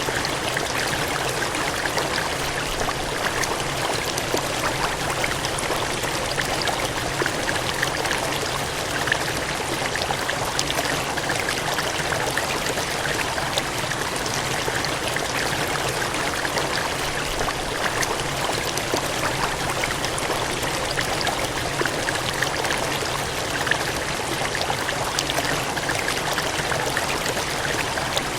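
Water gushing and cascading steadily, a continuous rushing flow with small splashes and spatters throughout.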